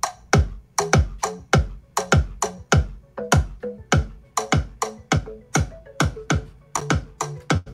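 Electronic music with a steady drum-machine beat, a deep kick a little under twice a second, played through a Morel Högtalare wireless stereo speaker and heard in the room.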